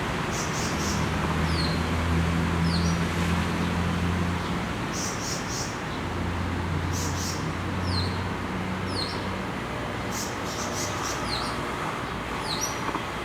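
Birds calling: repeated short, high, downward-sweeping chirps and quick clusters of harsh, scratchy notes, over a steady low traffic hum.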